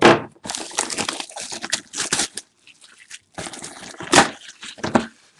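Trading-card box packaging being torn open and crumpled, in irregular rustling, crinkling bursts, loudest at the start and again about four seconds in.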